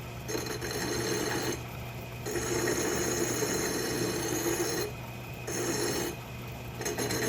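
Hand file pressed against the edge of a metal washer spinning in a lathe to cut a bevel: four separate strokes, each a ringing scrape lasting from half a second to about two and a half seconds, over the lathe's steady motor hum.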